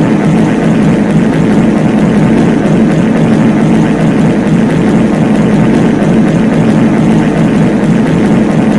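Many overlapping copies of a reverb fart sound effect, layered so thickly that they merge into one loud, steady, deep rumble with no gaps.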